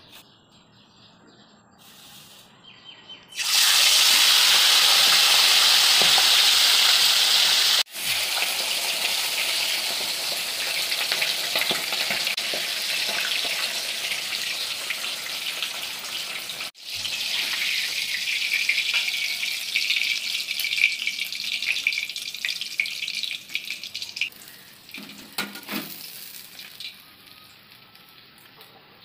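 Fish pieces frying in hot oil in a pan, a loud, steady sizzle. It starts suddenly about three seconds in, breaks off twice for an instant, and dies away over the last few seconds, with a couple of faint knocks near the end.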